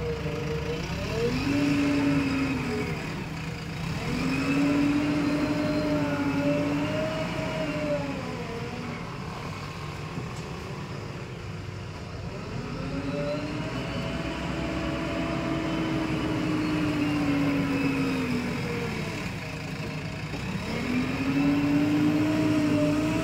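JCB 3DX backhoe loader's diesel engine working under load while it scoops and carries sand. It revs up and holds a higher pitch for a few seconds about four times, dropping back lower between each.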